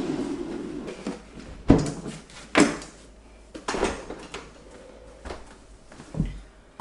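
Freezer drawer sliding, followed by a series of separate knocks and clunks as things are handled and set down in it.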